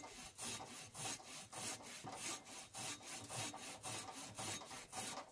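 Silky Big Boy 2000 folding hand saw cutting through a small live tree trunk in quick, even strokes, about three to four a second, with a rasp of teeth in wood on each stroke. The sawing stops right at the end.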